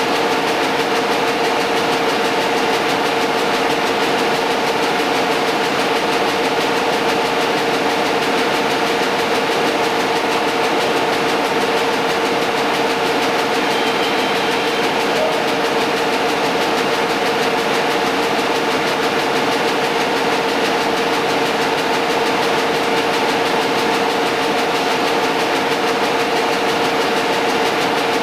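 Rotary newspaper printing press running at a steady speed: a constant mechanical drone with a few steady hum tones and no change in pace.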